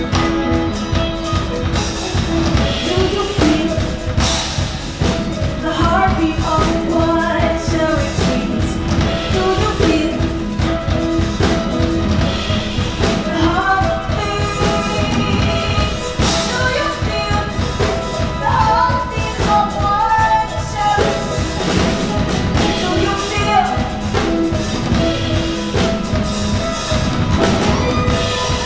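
A live band playing a song: drum kit with cymbals and snare driving the beat under guitar and keyboard, with a woman singing the melody.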